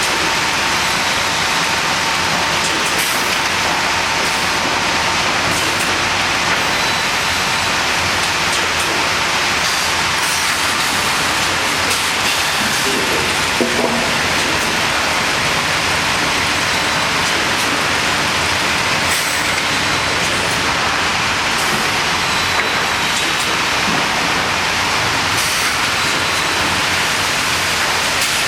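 Hardwood gang edger running in a sawmill: a loud, steady rushing machine noise that does not let up.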